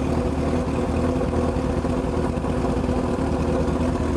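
Honda CB1000's inline-four engine running at a steady speed, its exhaust note even and unchanging, with no revving.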